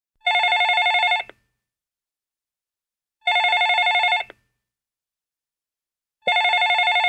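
A phone ringing with an electronic warbling ring: three rings of about a second each, spaced about three seconds apart.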